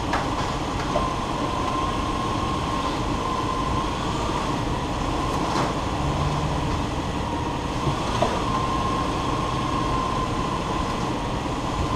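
Toyota Land Cruiser 100 series running, heard from underneath the vehicle: a steady mechanical noise with a steady whine that dips slightly a couple of times and a few faint light clicks. No driveline clunk is heard now that the CV shafts and hub flanges have been replaced.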